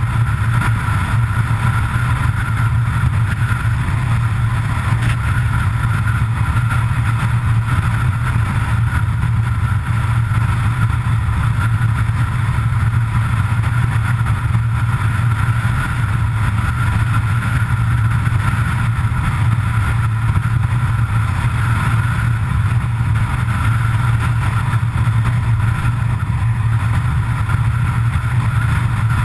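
Road vehicle cruising at a steady speed: a constant, unchanging noise of engine, tyres and wind with a strong low hum.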